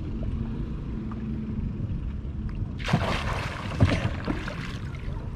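Lake water splashing and sloshing as a person heaves himself out of the water onto a Pelican Mission 100 sit-in kayak, starting about three seconds in, with two sharp knocks against the hull. A low steady rumble runs underneath.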